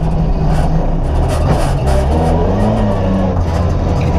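Volvo 240 rally car's engine running under load, its pitch rising and then falling again about halfway through. The car has a faulty clutch that is locking the rear wheels and stalling the engine in hairpins.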